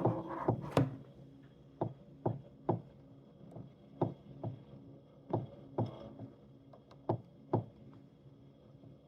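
Tacx Neo Bike smart trainer bike making an unwanted knocking noise: sharp knocks, often in pairs, repeating about every second and a half over a faint low hum, stopping near the end.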